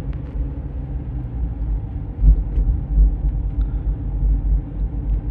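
Low rumble of a car heard from inside its cabin, with a louder swell about two seconds in.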